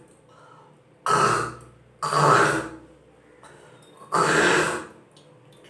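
A woman hawking and retching loudly from the throat and spitting, three harsh hawks in a row.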